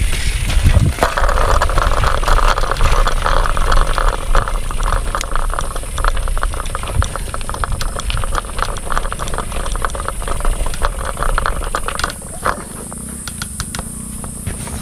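A bicycle rattling over a rough road, a dense clatter of clicks with wind rumbling on the microphone. The rattling eases about twelve seconds in.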